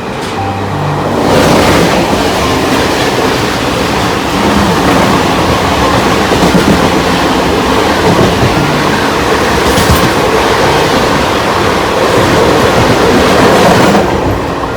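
Passenger train running on the track: a loud, steady rumble and rattle of wheels and carriages, swelling about a second and a half in and easing near the end.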